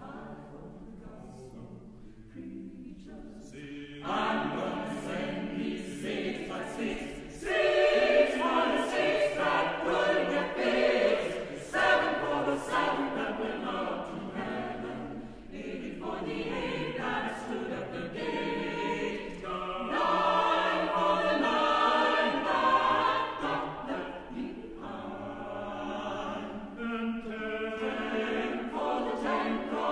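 Mixed chamber choir singing an arrangement of a spiritual. It is quieter for the first few seconds, then louder from about four seconds in.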